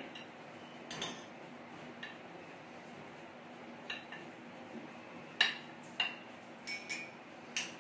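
A metal spatula clinks against a serving dish and plate as rolls are lifted out and served. There are several short, sharp clinks scattered through, the loudest about five and a half seconds in.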